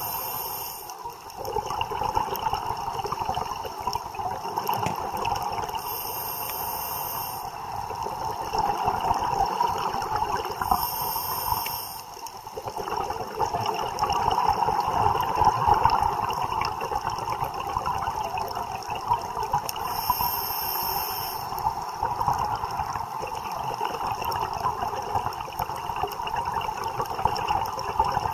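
Scuba regulator breathing heard underwater: continuous bubbling and gurgling of exhaled air, broken by short lulls about a second in and again about twelve seconds in.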